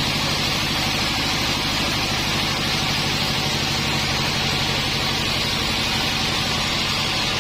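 Sawmill running steadily: a constant engine hum under an even, high hiss from the saw, with no change throughout.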